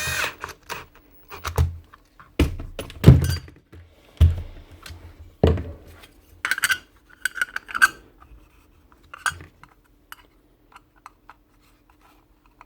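Hard parts and tools being handled on a workbench during sander reassembly: a run of irregular knocks, the loudest about three seconds in, then lighter ringing metallic clinks, dying away after about ten seconds.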